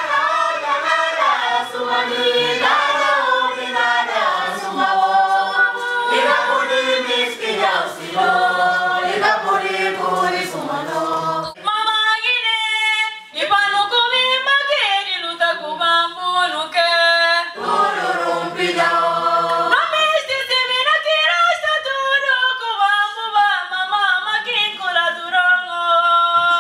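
A choir of women's and men's voices singing together without instruments, thinning briefly to fewer voices about halfway through before the full group comes back in.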